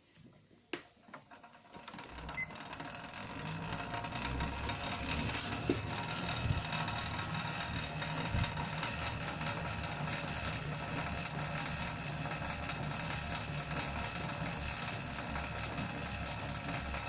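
Spin bike flywheel being spun up over the first few seconds and then running steadily, giving a rapid mechanical ticking over a low hum: the wheel noise being shown.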